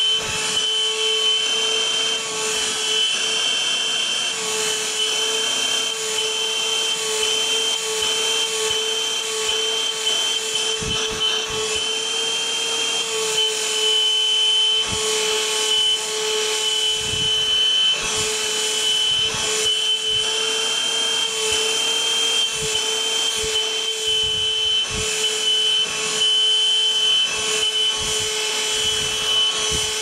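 Novete cordless handheld wet-and-dry vacuum cleaner's 100 W motor running steadily with a high whine, its nozzle rubbing over carpet with short scuffs throughout.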